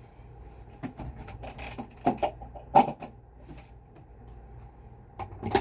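Plastic vacuum cleaner attachments being handled: a series of irregular clicks and knocks, the sharpest about three seconds in and again near the end, over a faint steady hum.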